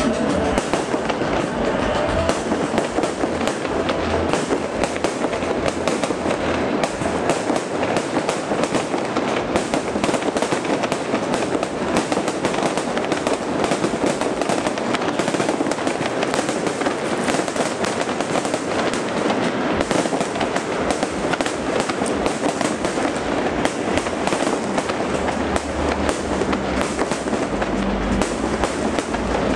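Fireworks display: a dense, unbroken run of crackling and popping.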